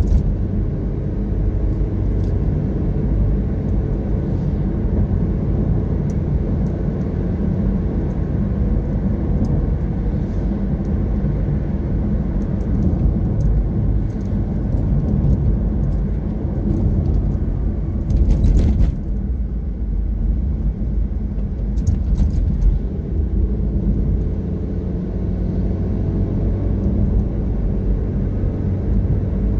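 Steady low rumble of a car driving along an open road: engine and tyre noise heard from inside the vehicle, with a short louder clatter a little past halfway.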